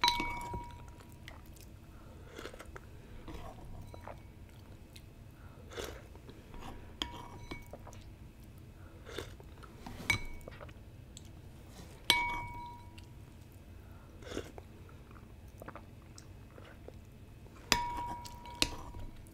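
Noodles being eaten with chopsticks and a soup spoon: soft chewing throughout, and a handful of sharp clinks of the spoon against a porcelain bowl. The loudest clinks ring on briefly: one at the start, two in the middle and one near the end.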